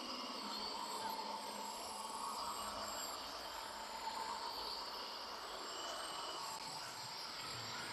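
Jungle ambience: a steady chorus of insects chirping and trilling at several pitches.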